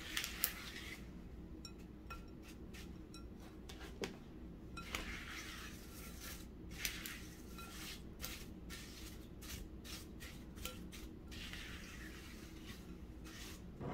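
Silicone spatula stirring fried chow mein noodles coated in melted almond bark in a glass mixing bowl: quiet, irregular scraping, soft crunching and small clicks of the noodles and spatula against the glass.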